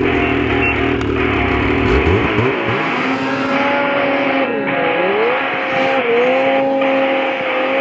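Snowmobile engine running at high revs, its pitch dipping sharply and recovering twice in the middle.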